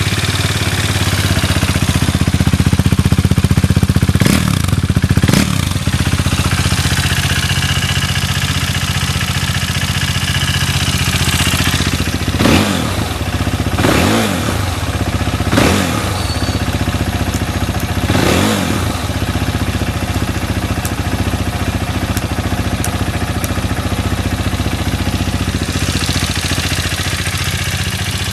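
KTM 390 Duke single-cylinder engine idling through an Akrapovic silencer, just after a first-press start, with the throttle blipped six times: twice in quick succession about four seconds in, then four more between about 12 and 19 seconds in. It revs up cleanly, with no abnormal noise.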